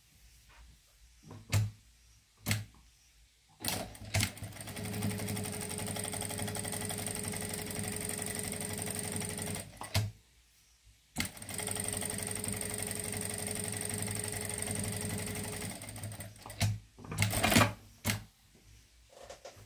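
Table-mounted sewing machine stitching a seam through a towel and a cotton band. It runs steadily for about six seconds, stops briefly, then runs again for about four and a half seconds. A few clicks and rustles of fabric being handled come before and after the runs.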